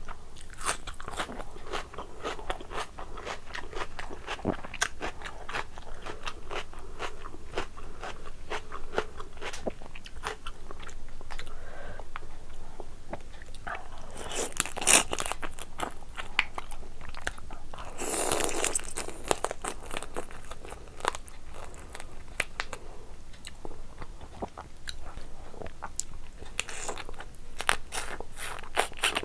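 Close-miked eating: crunching bites and chewing of raw onion and curried lobster and prawn, with many wet mouth clicks. Two louder, longer bursts come about halfway through.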